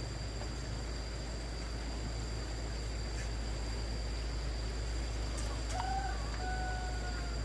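Steady low engine drone. Near the end a rooster crows once, a drawn-out call in two parts.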